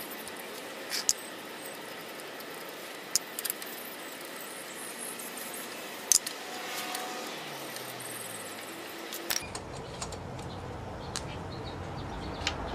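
Hand tools and electrical connectors being handled on the Nissan Leaf's inverter housing: a few sharp clicks and light metallic clatter, about a second, three seconds and six seconds in, over a steady hiss. A low hum comes in about nine seconds in.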